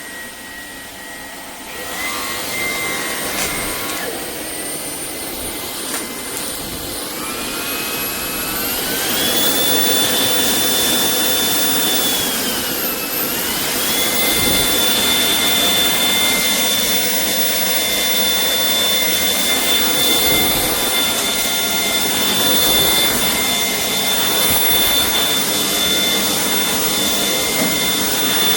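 Shark cordless vacuum cleaner running: a high motor whine over a rushing hiss. The whine climbs in pitch and the sound grows louder about eight seconds in, dips briefly near the middle, then holds steady.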